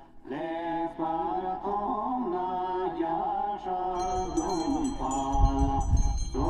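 Background music: a chanted, mantra-like vocal melody, joined about four seconds in by a deep low beat and bright bell-like notes.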